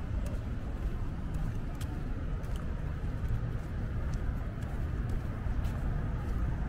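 Steady low rumble of city traffic, with a few faint scattered ticks over it.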